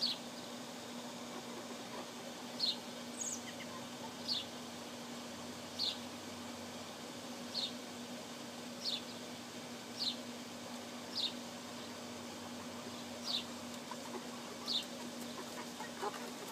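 A bird repeating a short, high, falling chirp about every one to two seconds over a steady low hum. Soft hen clucking starts near the end.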